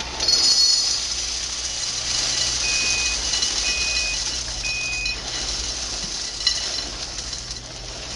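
Puffed-wheat cereal poured from its box into a bowl: a steady rustling hiss of small pieces falling, loudest in the first second. Three short beeps about a second apart sound in the middle.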